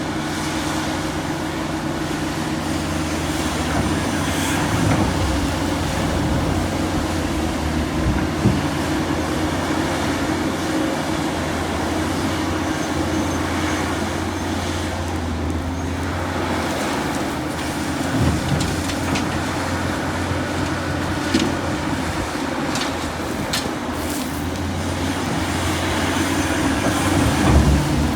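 Heavy excavator's diesel engine running with a steady low drone, with a few sharp knocks at intervals, the loudest near the end.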